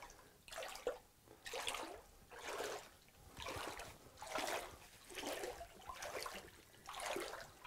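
Footsteps splashing through shallow water on a cave floor, about eight steps, a little under one a second.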